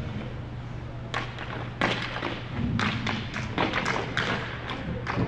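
A run of irregular thuds and taps from play in a team game, starting about a second in and coming several times a second at times, over a steady low hum.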